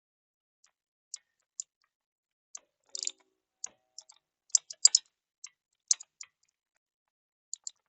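Irregular sharp clicks and light taps from hand-tool work on mast hardware, loudest in a quick cluster a little before halfway through.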